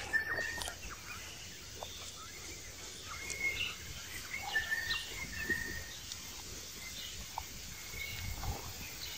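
Outdoor woodland ambience, with short high chirps every second or so that sound like birds, over a steady background and a few faint clicks.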